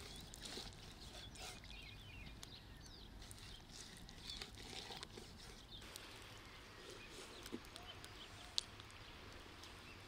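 Faint outdoor ambience with small birds chirping, and light clicks of a knife slicing raw liver on a wooden cutting board, with one sharper tap late on.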